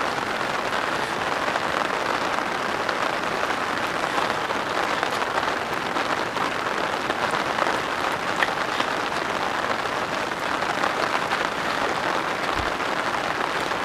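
Steady heavy rain, with scattered louder drops ticking through it.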